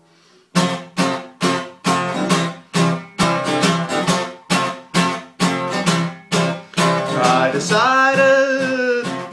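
Acoustic guitar strummed in a steady rhythm, about two strums a second. A man's singing voice comes in over it near the end.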